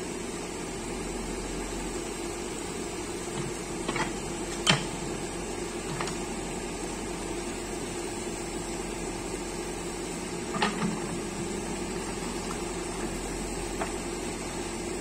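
Backhoe loader's diesel engine running steadily, with a few sharp knocks from the machine now and then.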